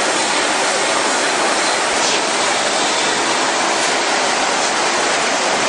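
A steady, loud, even hiss with no rhythm or tone.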